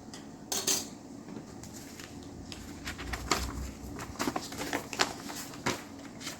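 Plastic model-kit parts and their packaging being handled: irregular crinkly rustling and light plastic clicks.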